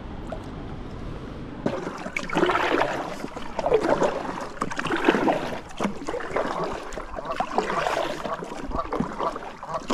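Kayak paddle strokes through calm lake water, a splash and swirl of water with each stroke about once a second, starting about two seconds in.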